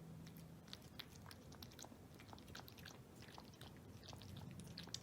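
Shih Tzu puppy lapping water from a bowl: faint, quick, irregular wet clicks of the tongue, a drink meant to stop its hiccups.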